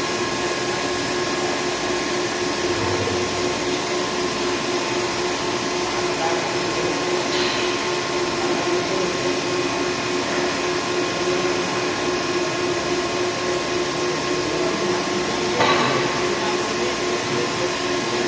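Air conditioner running with a steady whir and several steady whining tones, checked for a squeaking-noise problem. Two short, sharper sounds come through, about a third of the way in and again near the end.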